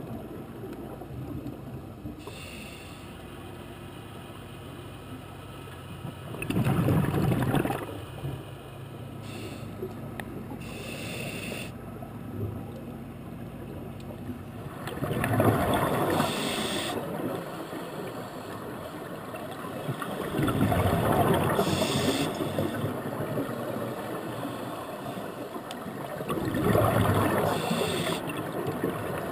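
Scuba diver breathing through a regulator underwater: four loud rushes of exhaled bubbles about five to six seconds apart, with short hissing inhalations between them.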